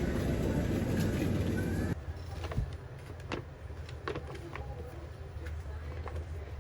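Steady rumble of a moving vehicle that cuts off abruptly about two seconds in, followed by quieter room sound with scattered light clicks and knocks.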